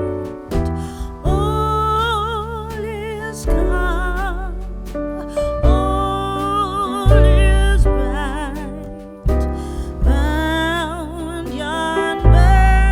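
Background music: a singing voice holds long, wavering notes over a deep, sustained bass.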